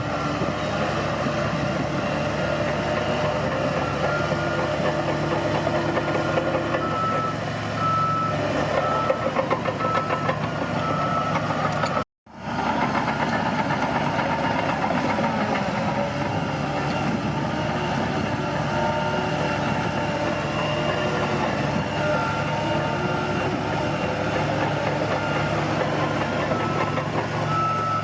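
Bulldozer's diesel engine running steadily, with its reversing alarm beeping in stretches, clearly from about seven to eleven seconds in and again near the end. The sound cuts out completely for a moment about twelve seconds in.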